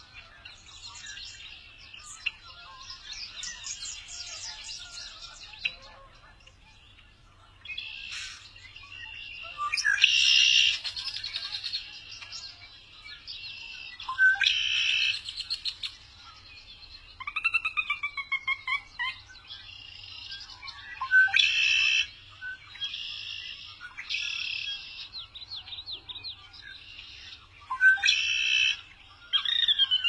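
Male red-winged blackbird singing its buzzy, trilled song four times, each a second or two long, over fainter chatter of other bird calls with a few falling whistled notes.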